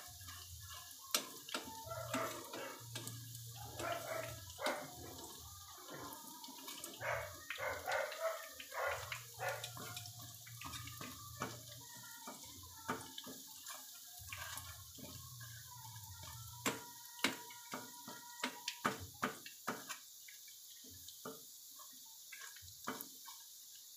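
Hot oil sizzling and crackling around battered chicken pieces frying in a pan, with sharp clicks of tongs against the pan and chicken as the pieces are turned.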